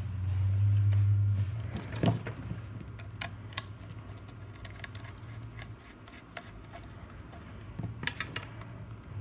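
Scattered metallic clicks and taps as a coaxial antenna connector is screwed onto a UHF CB radio's antenna socket and its cables are handled on a workbench. A low hum cuts off about a second and a half in.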